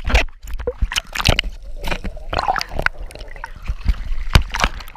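Choppy sea water splashing and sloshing around a GoPro camera held at the surface and dipping under, a run of short sharp splashes over a low rumble.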